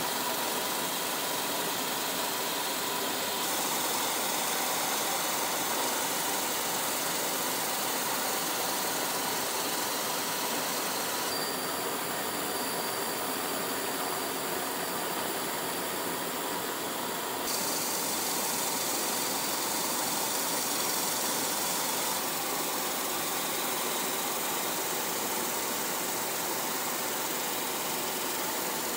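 Steady engine-like hum and hiss with a faint whine in it, its tone changing abruptly several times.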